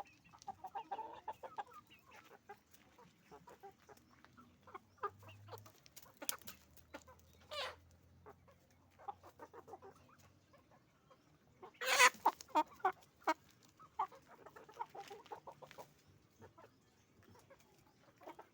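A flock of domestic chickens clucking and squawking in short, scattered calls, with a louder burst of squawks about two-thirds of the way through.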